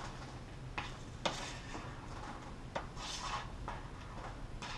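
Chopped red onion being scraped off a plastic cutting mat into a plastic sandwich bag: a few light clicks and taps and a short crinkle of the bag, over a low steady hum.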